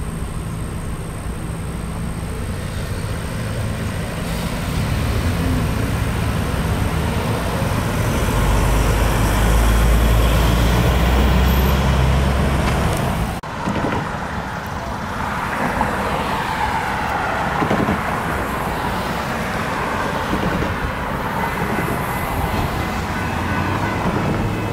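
Vehicles passing at a railroad grade crossing. A heavy low rumble builds and holds loud from about eight to thirteen seconds in, then cuts off suddenly. Passing traffic noise with gliding pitches follows.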